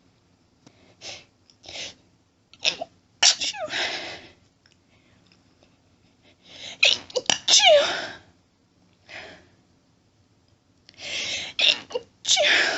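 A person sneezing hard three times, a few seconds apart, each sneeze led by short, hitching in-breaths. These are sneezes the person is trying and failing to hold back.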